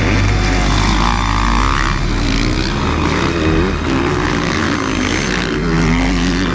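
Several motocross bike engines running and revving, their pitch rising and falling as the riders accelerate and back off, over a steady low engine drone.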